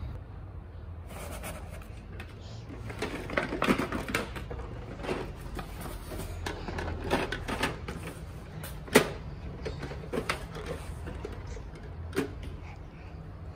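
Unboxing handling noise: a windowed cardboard toy box being opened and moved, with rustling and scraping, then a plastic toy garbage truck lifted out and set down. Several sharp knocks stand out in the second half.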